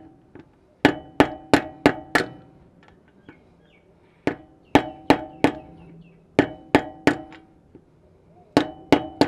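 Mallet striking a metal seal-driver tool, tapping a new inner axle seal into a Toyota solid front axle housing until it sits flush. About fifteen sharp knocks, each with a brief metallic ring, in quick runs of three to five at about three a second.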